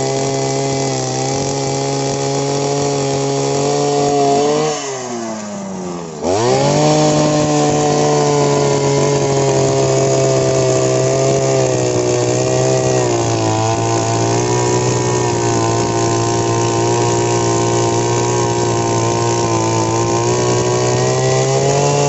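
Petrol earth auger's small engine running at high revs, dropping off briefly about five seconds in and then revving straight back up, and settling a little lower in pitch about halfway through.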